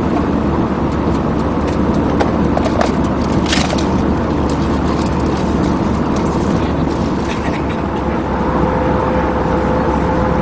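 Steady cabin noise of an Airbus A320-214 in flight, the rush of air and its CFM56 engines heard from inside the passenger cabin, with a few light clicks over it. A faint steady tone comes in near the end.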